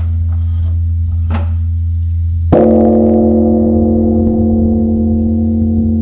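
Korean Buddhist temple bell (beomjong) struck once about two and a half seconds in, ringing on with many steady tones that fade slowly. Under it runs the bell's deep hum, still sounding from the previous strike, with a few light knocks before the new stroke.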